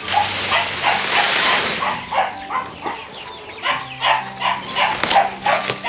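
Repeated short animal calls, several a second, with a rustle of cut grass being handled in the first couple of seconds.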